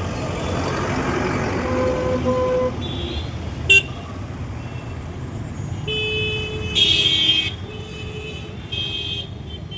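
Heavy road traffic with engines running steadily, and horns honking over it: a short sharp toot about four seconds in, a louder horn about seven seconds in and another shorter one near the end.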